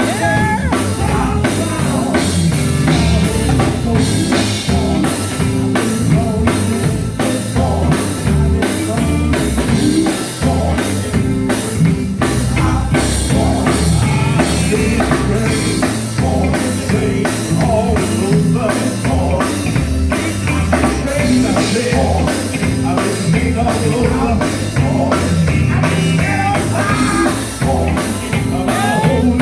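Gospel band playing live: a drum kit keeps a steady driving beat over bass and other instruments, with some singing.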